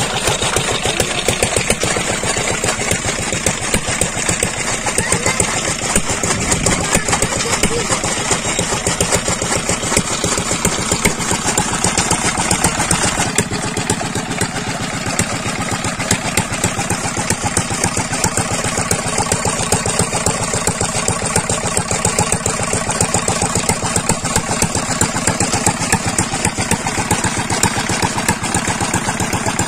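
Old Petter stationary diesel engine running steadily with a rapid, even beat, under load driving a chaff cutter by a flat belt.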